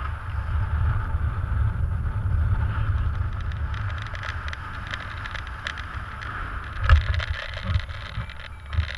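Airflow buffeting the helmet camera's microphone in paraglider flight, a steady rushing wind noise with a low rumble. A sharp knock stands out about seven seconds in, with smaller ones near the end.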